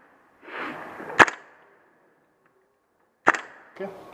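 HPA-powered airsoft gun firing single shots: two sharp cracks about two seconds apart.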